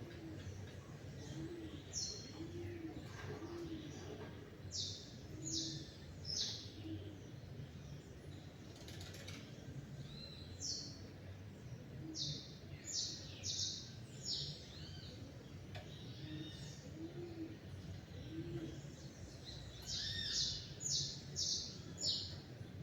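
Small songbirds chirping in quick groups of short, high, sharp notes every few seconds, with a dove cooing softly and low in the background.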